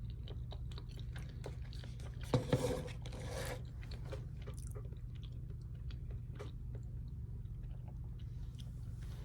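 A person chewing food close to the microphone, with many small wet mouth clicks and a louder, noisier burst of eating sounds about two and a half seconds in.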